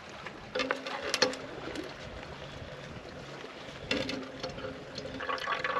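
Soft plastic squeeze pouch of a Sawyer Mini water filter crinkling as it is handled. Near the end a thin stream of water, squeezed through the filter, starts trickling into a bottle.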